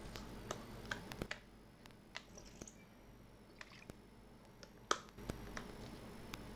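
Faint scattered clicks and small taps over a low steady room hum, with one louder click about five seconds in.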